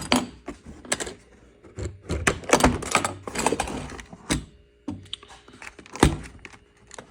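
Sharp clicks and knocks with rustling and scraping in between: a hard plastic tool case and the torque wrench inside it being handled and opened.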